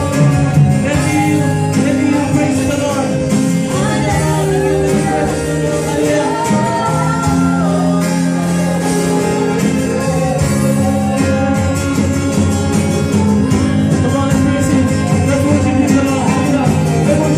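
Live worship band playing a song: several singers on microphones over electric guitars and a drum kit keeping a steady beat, loud in a large room.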